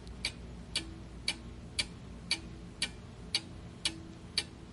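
Clock-ticking sound effect marking the countdown time for answering a quiz question: sharp, even ticks about twice a second.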